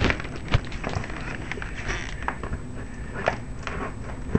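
A dog's clear plastic cone collar bumping and scraping on a hardwood floor as he noses at a treat trapped under its rim. It gives irregular clicks and knocks, with a sharper tick about half a second in and another at the end.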